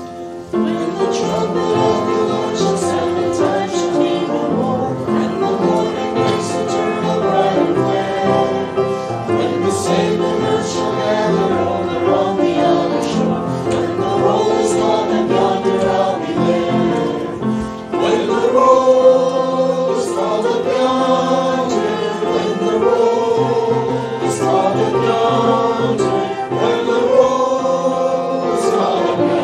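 Church congregation singing a hymn together, starting about half a second in, with a short break between phrases midway.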